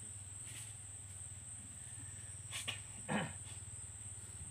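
Heavy vehicle engine idling with a low, steady hum, under a steady high-pitched insect buzz. About three seconds in, a short call falls in pitch.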